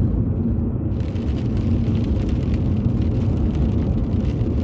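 Steady low rumble of road and engine noise inside a moving car's cabin, driving in rain.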